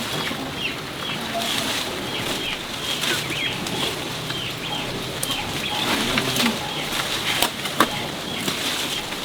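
Many small birds chirping, with short high peeps repeating several times a second. Two sharp clicks come near the end.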